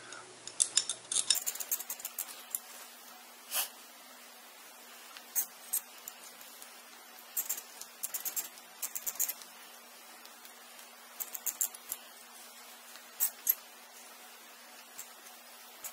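Light clicking and rustling as hair is wound around and released from a curling iron, in short clusters every few seconds, over a faint steady hum that comes in about a second in.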